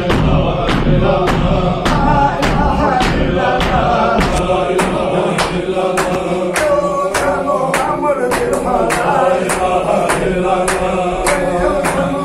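Group of men chanting a Chechen–Ingush circle zikr (Sufi dhikr) in unison, with sharp rhythmic beats nearly three a second keeping time.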